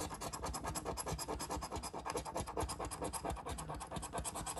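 A coin scraping the coating off a scratch-off lottery ticket in rapid, even back-and-forth strokes.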